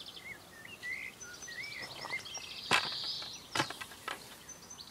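Small birds singing around a lake, with short warbling phrases and fast trills. Two sharp knocks come a little past halfway, about a second apart.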